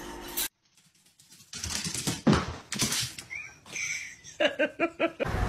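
Small pets scuffling and play-fighting on a sofa, with knocks and rustling, then a quick run of about six short high-pitched cries near the end.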